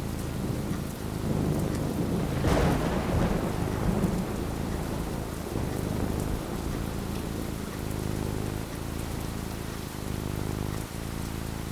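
Thunderstorm: steady rain with low rolling thunder, and a crack of thunder about two and a half seconds in that rumbles away over the next few seconds.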